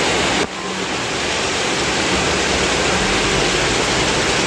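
A steady, loud rushing hiss with no clear pitch, dropping sharply about half a second in and then building back up.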